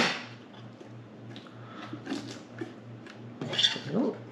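Hard plastic parts of a GDome underwater housing and its handle being picked up and handled on a table. A sharp knock comes right at the start, then light rubbing and clatter, and a few louder scrapes near the end.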